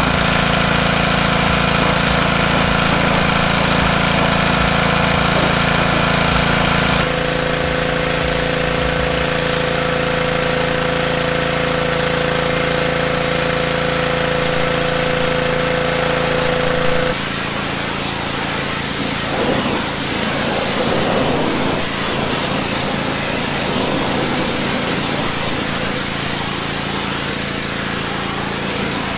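Gas-engine pressure washer running steadily, with the hiss of its spray wand hitting the truck; the sound changes abruptly about seven and seventeen seconds in, and grows more hissy in the last part as the spray works close by on a wheel.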